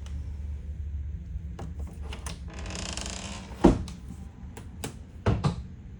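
Knocks and thumps of things being handled: a short swish, then one sharp loud knock around the middle and a quick double thump near the end, over a low steady hum.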